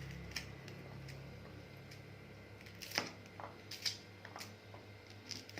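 Corn kernels being separated from a corn cob by hand: faint scattered small clicks and taps, with two sharper ones about three and four seconds in.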